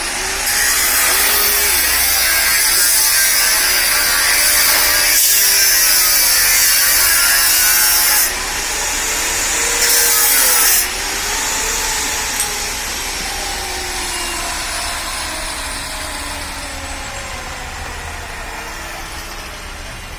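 Handheld power tool running under load, working a workpiece with a loud grinding hiss, its motor pitch sagging and rising as the pressure changes. The hiss breaks off briefly about eight seconds in, stops again near eleven seconds, and then the sound slowly fades.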